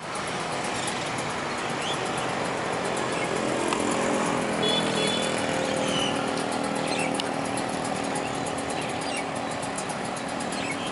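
Road traffic of motorcycles and cars running steadily, with one engine growing louder and passing about four to five seconds in.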